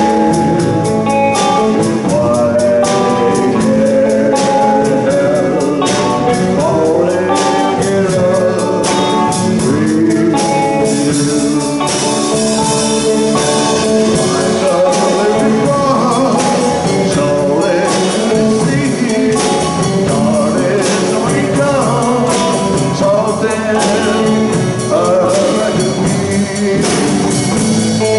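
A live band of hollow-body electric guitar, upright double bass and drum kit playing a song, with a man singing lead over a steady drum beat.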